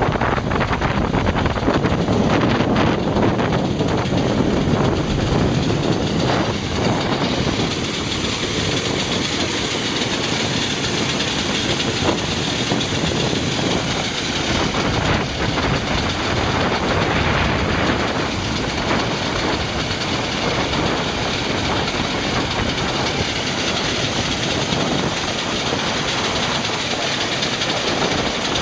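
Steady loud engine and vehicle noise, a dense hiss over a low rumble with light rattling, running without a break.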